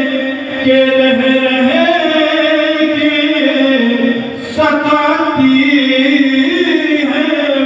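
A man singing a naat, an Urdu devotional poem, unaccompanied, in long drawn-out notes that slide between pitches, amplified through a microphone and loudspeakers. He breaks briefly for breath twice, about half a second and just past four seconds in.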